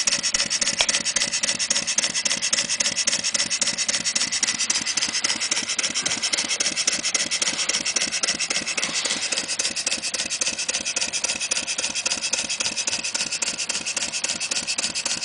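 Clarkson model vertical steam engine running on compressed air in full gear, at about 220 rpm: a steady, rapid run of exhaust beats from the cylinder with air hiss, running smoothly.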